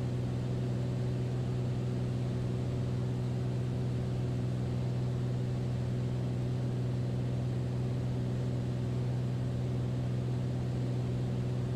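Steady drone of a Beechcraft Bonanza's single piston engine and propeller in flight, heard from inside the cockpit: an even, unchanging low hum.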